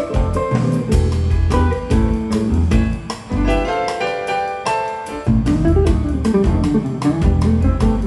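Band music with guitar, bass guitar and drums, in a jazz style, played back through a pair of Yamaha NS-C150 speakers with a subwoofer. A steady beat of drum strikes runs under the guitar lines and bass notes.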